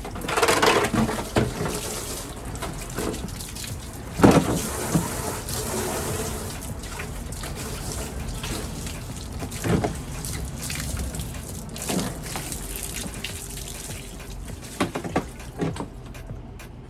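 Running water splashing as removable freezer parts are rinsed, with occasional knocks as the pieces are handled, the loudest about four seconds in.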